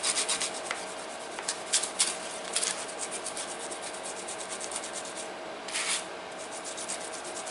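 Small wire brush scrubbing a stainless steel chef's knife blade in quick repeated scratching strokes, with a few louder scrapes, working off sticky tape adhesive softened with acetone.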